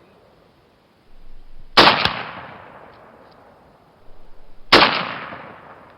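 Two gunshots about three seconds apart, each with a long echoing fade, and a quieter rough noise rising shortly before each shot.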